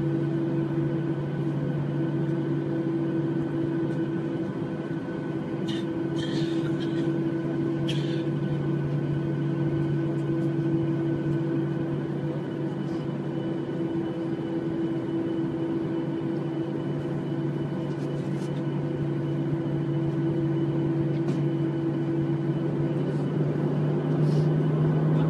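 Steady droning hum inside an airliner cabin, heard from a window seat over the wing, with a few faint knocks about six to eight seconds in. The hum rises slightly in pitch right at the end.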